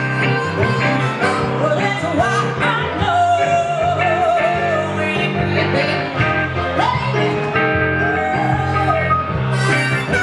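Live blues-rock band playing: electric guitar and electric keyboard over a steady low groove, with a long, wavering lead line held over the top twice.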